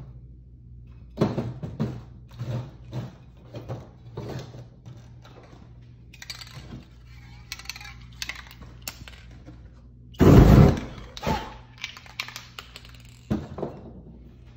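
Spray-paint cans and papers being handled on a painting table: a run of knocks and clatters, a stretch of hissing rustle midway, and one loud thump about ten seconds in, over a steady low hum.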